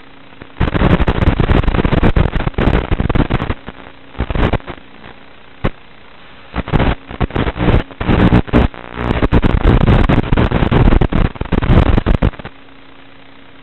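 A small RC car's onboard camera microphone, heard through an analog FPV video link, picks up loud, distorted bursts of motor and chassis noise as the car drives over rough grass and dirt. The bursts start and stop abruptly with the throttle. In the gaps, and after the noise cuts off near the end, there is a steady transmission hiss with a faint hum.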